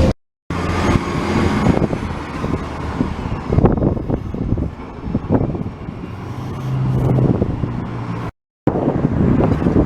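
Steady low road and engine noise of a moving vehicle, with scattered knocks and rattles. The sound cuts out abruptly to silence twice, at edit points.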